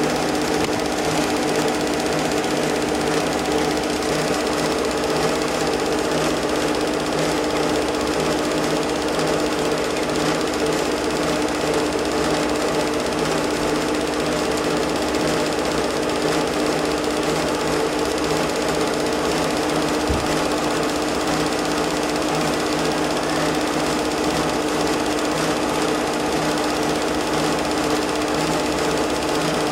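Film projector running: a steady motor hum with an even, fast mechanical clatter.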